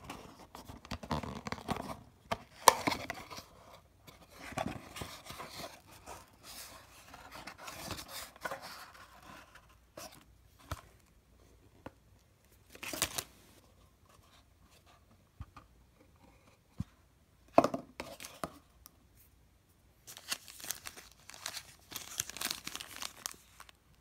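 Hands opening a small taped cardboard box: cardboard flaps scraping and tape tearing loose, with a couple of sharp snaps. Near the end, a thin clear plastic bag crinkles as it is handled.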